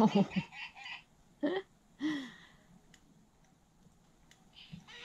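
Talking baby doll's electronic baby sounds, set off by pressing its tummy: a fast run of recorded giggles that ends about a second in, then two short baby vocal sounds.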